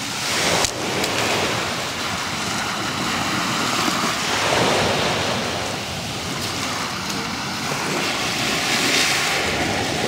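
Sea waves washing onto a pebble beach: a steady rush of surf that swells and ebbs every few seconds.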